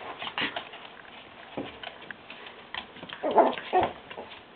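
Norfolk terriers play-fighting: short, scattered dog noises and scuffling on the floor, with a louder cluster of them about three seconds in.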